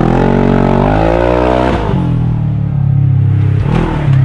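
Polaris RZR RS1 side-by-side's engine revving as it accelerates: the pitch climbs for about two seconds, drops sharply, then runs lower and steady, with another brief rev near the end.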